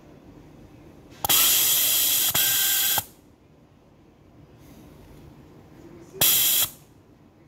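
Compressed air hissing out of a digital smart electro-pneumatic positioner as it strokes a double-acting pneumatic actuator during its automatic initialization. A hiss of nearly two seconds starts about a second in, with a click partway through, and a second, half-second hiss follows near the end.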